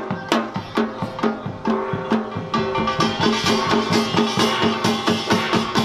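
Korean samulnori percussion ensemble playing: janggu hourglass drums struck in a fast, steady rhythm of about four or five strokes a second, with small kkwaenggwari gongs ringing over them. The metallic gong ringing grows fuller about halfway through.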